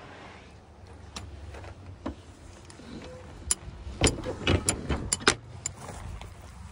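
Sharp knocks and clanks inside an aluminium horse trailer, a few scattered at first, then a quick cluster about four seconds in, over a low rumble.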